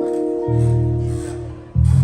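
Instrumental music with sustained chords over a bass line. The sound fades toward the end, then a loud new chord with a strong bass comes in just before the end.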